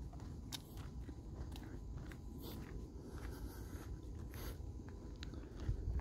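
Footsteps crunching on a packed dirt trail, several people walking at an easy pace, with regular steps over a low steady rumble.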